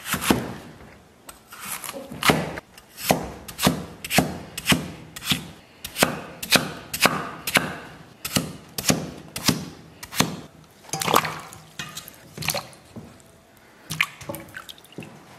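Chinese cleaver chopping a peeled potato into roll-cut chunks on a thick round wooden chopping board: a sharp knock with each stroke, up to about two a second. Near the end, potato pieces splash into a steel bowl of water.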